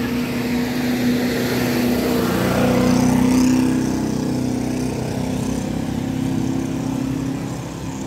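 An open-top jeep and a motor scooter drive past close by, their engines running with a steady hum; the sound grows loudest about three seconds in, then fades.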